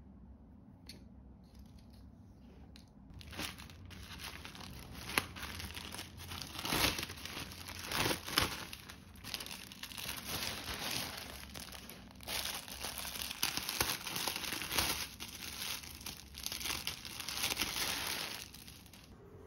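Plastic packaging crinkling and rustling in irregular bursts as hands rummage in a plastic courier mailer bag and handle a kitchen towel in its clear plastic wrap. It starts about three seconds in and stops just before the end.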